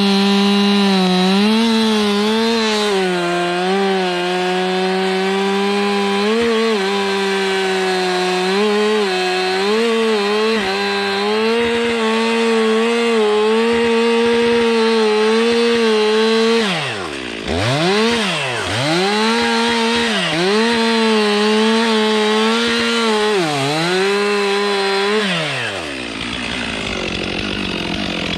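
Chainsaw cutting pine trees, its engine held at high revs. Several times the throttle is let off, so the revs drop sharply and climb again. Near the end the engine winds down and stops.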